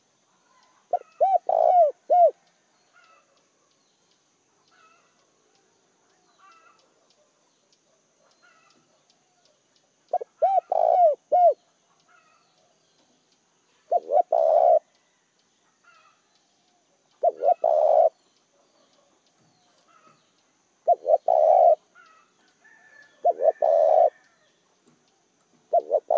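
Spotted dove cooing: seven short phrases of low coos, each about a second long, with gaps of a few seconds between them. The first two phrases are made of separate rounded notes.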